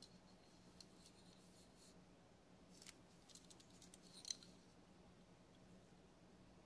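Near silence with faint small clicks and rustles as a diecast toy car is turned over in cloth-gloved hands, over a faint steady hum; the sharpest tick comes about four seconds in.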